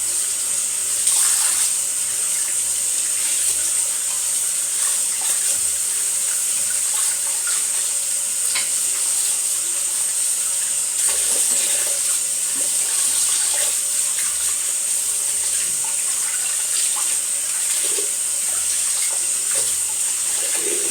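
Tap water running steadily into a sink as hands and hair-cutting tools are rinsed under it, with a few light knocks now and then.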